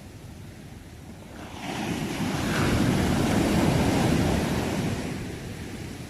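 Sea waves: a single wave swells in about a second and a half in, breaks and washes up, then fades away near the end over a low steady surf hiss.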